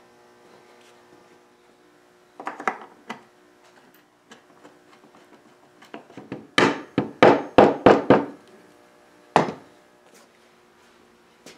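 Knocks and clatter of wood and hardware from the mahogany gateleg table being assembled and its hinges screwed on: a short cluster early, then about half a dozen sharp knocks in quick succession a little past the middle, and a few single knocks after. A faint steady mains hum sits underneath.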